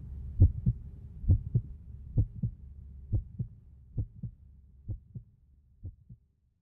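Heartbeat: pairs of low thumps, lub-dub, repeating a little under once a second, over a low hum, all fading away toward the end.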